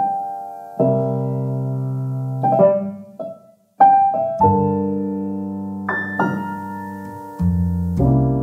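Background music: slow piano chords, each struck and left to ring out, with a brief break about three and a half seconds in.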